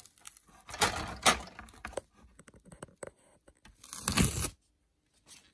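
Masking tape being peeled off a plastic terrain tile: two ripping tears, about a second in and again about four seconds in, with small crackles of the tape between.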